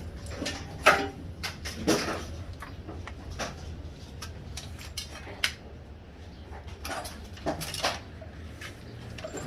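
Irregular clicks, knocks and light clatter of parts and tools being handled during an e-bike build, over a steady low hum.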